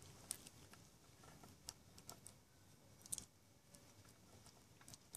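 Faint, irregular clicks and taps as a centrifugal clutch bell is worked by hand onto the crankshaft extension sleeve of a two-stroke bicycle engine, a small cluster of them about three seconds in.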